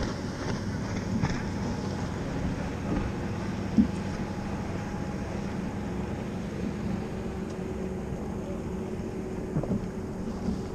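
Steady low motor hum with wind and water noise on a bass boat's deck, broken by a sharp knock about four seconds in and a few lighter knocks near the end.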